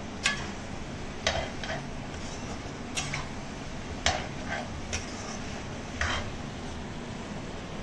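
Metal spatula scraping and knocking against a steel kadai while stirring duck meat frying in oil: about eight short, sharp strokes at irregular intervals, roughly one a second.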